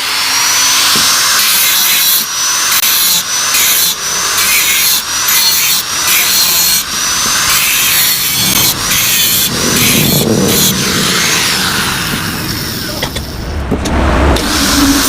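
Electric power tool grinding the steel of a knock-off Yamaha RX-King motorcycle exhaust: harsh, loud grinding over a high motor whine that sags and recovers about every second and a half as it bites, then falls away near the end.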